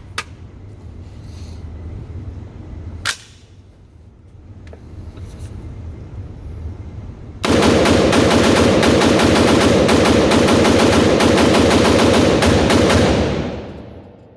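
AR-15 pistol firing: a single shot about three seconds in, then a long, fast string of shots for about five seconds. The rifle keeps cycling with brass-cased ammunition instead of stopping after one shot.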